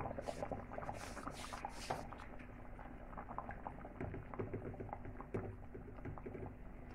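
Thick curry gravy with chicken koftas bubbling and popping at the boil in a pan, with a wooden spatula stirring through it in the second half.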